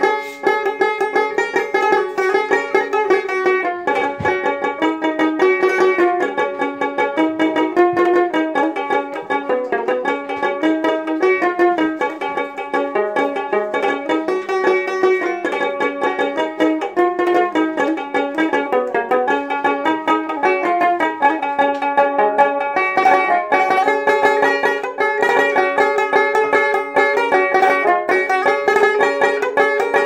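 Dotara, the Bengali long-necked plucked folk lute, playing a quick, continuous run of plucked melody notes.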